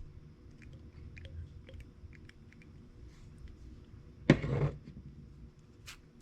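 Tyco 440X2 slot car motor given a quick burst of power after oiling, whirring briefly for under half a second about four seconds in. Small clicks of the chassis being handled come before it.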